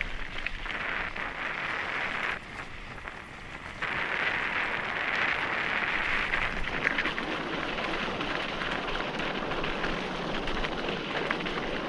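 Mountain bike tyres rolling over loose dirt and gravel, a steady crunching hiss with scattered small clicks and rattles from the stones and the bike. It dips quieter for about a second and a half, a couple of seconds in, then carries on.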